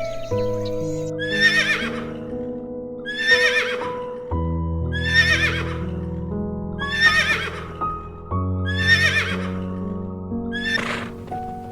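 Calm instrumental background music of held notes. Over it, a short, high, wavering animal call repeats about every two seconds, six times.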